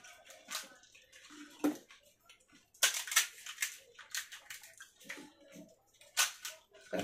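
Fuchka (pani puri) being eaten: crisp shells crunching and the spiced water slurped, in irregular short bursts with a sharp crack about six seconds in.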